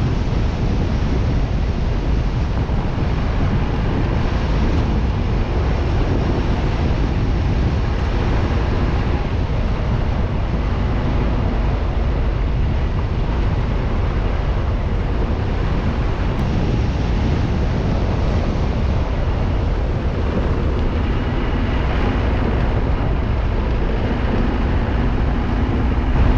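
Steady wind rumble on the camera microphone over the running noise of a moving vehicle, with no distinct events.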